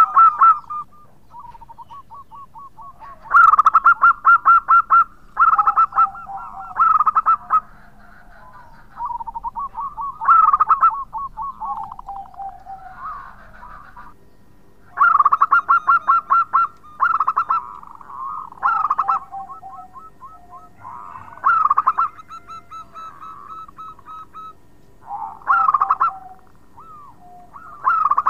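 Zebra dove (perkutut) singing: repeated loud bursts of rapid staccato cooing notes, each ending in a lower falling coo, with softer trilled coos between the bursts.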